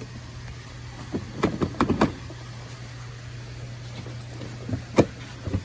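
Car dash trim and screws being handled while the panel is pried loose: a quick run of clicks and knocks between about one and two seconds in and one sharp knock near the end, over a steady low hum.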